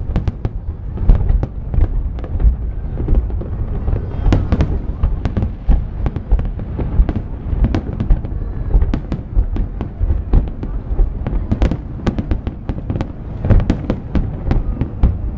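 Aerial firework shells bursting in a continuous barrage: a dense run of sharp cracks over a steady low rumble.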